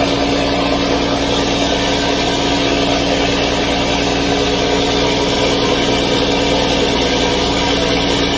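Fishing boat's engine running steadily as the boat moves under way, a constant drone with the rushing hiss of water from its wake.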